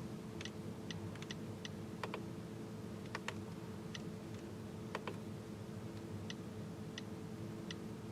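Light clicks from the cabin controls of a Mercedes-AMG S63 coupe, irregular at first, then evenly spaced about every 0.7 seconds, over a steady low hum in the cabin.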